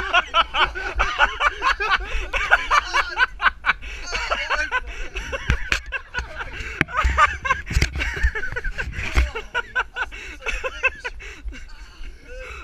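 Men laughing hard, with repeated bursts of laughter that carry on without a break.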